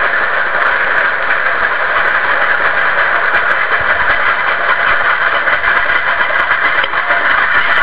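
Nilgiri Mountain Railway train passing close by: a steady running rumble and rattle of its coaches on the metre-gauge track, with the steam locomotive at the rear of the train.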